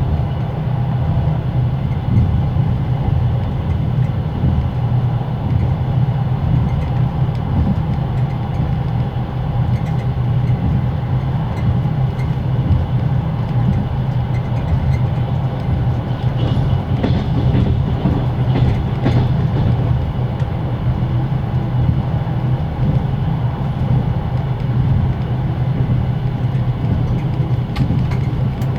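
Passenger carriage on the move, heard inside a closed compartment: a steady low rumble with the carriage generator's whine and the clatter of the wheels, a few sharper knocks about two-thirds of the way through.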